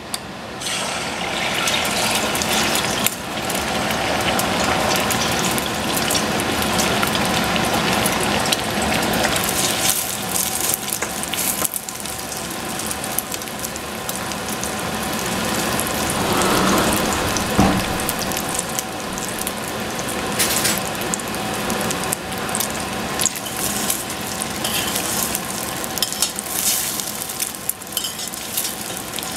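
Beaten egg sizzling as it fries in hot oil in a stainless-steel saucepan, starting just after the start as the egg is poured in, with scattered clicks and scrapes of a utensil working against the pan.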